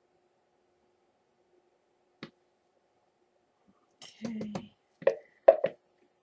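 A few sharp knocks and clicks of soap-making utensils against a container: a single click about two seconds in, a short rattling clatter about four seconds in, then two knocks in quick succession. A faint steady hum runs underneath.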